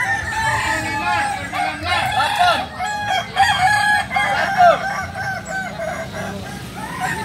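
Many Kukuak Balenggek roosters crowing at once, their long crows made of strings of short rising-and-falling notes overlapping one another without a break.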